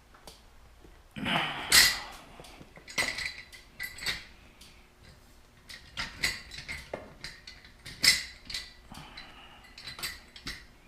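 Clanks and clinks of metal on metal, some with a brief ring: a motorcycle rear paddock stand being handled and its lifting forks knocking against newly fitted swingarm spool sliders while the rider tries to line them up. The stand does not line up with the spools.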